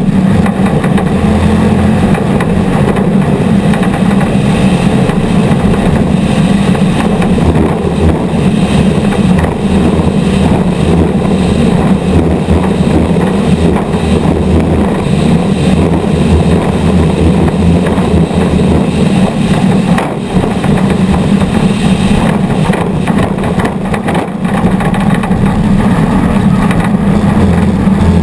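Off-road race vehicle's engine running hard and steady at speed, heard onboard, with brief easings of the throttle about twenty seconds in and again a few seconds later.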